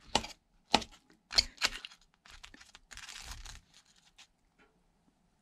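Knife cutting through the crispy toasted crust of a meatball sub roll, with a few sharp crunchy crackles in the first two seconds and a longer rasping stretch about three seconds in.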